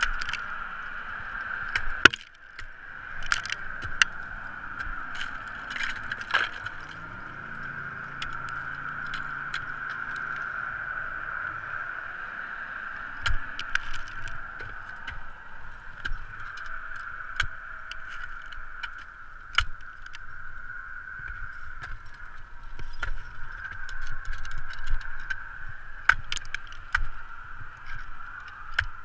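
Ice axes striking brittle, cold waterfall ice: irregular sharp chops and knocks as the picks are swung in, over a steady hiss.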